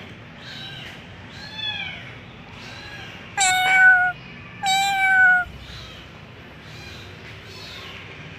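Cat meowing: a few faint meows, then two loud, drawn-out meows about three and a half and five seconds in.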